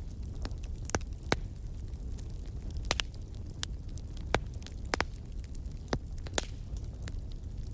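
Bonfire burning strongly: a steady low rumble of the flames with about ten sharp, irregular crackles and pops of burning wood.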